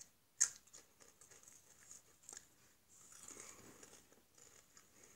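A crisp bitten with one sharp crunch about half a second in, followed by quiet chewing with small crackles.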